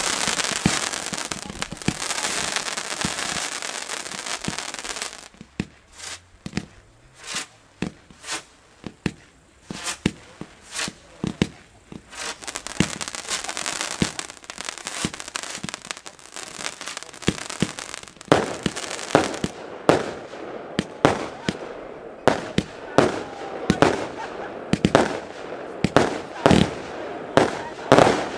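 Ground-fired fireworks batteries going off. For the first few seconds there is a dense hissing and crackling, then a long series of sharp shots and bangs from launching and bursting effects, coming faster near the end.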